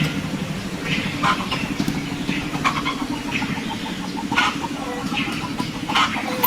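A motor running steadily, with short animal calls and a quick run of clucks over it about three seconds in.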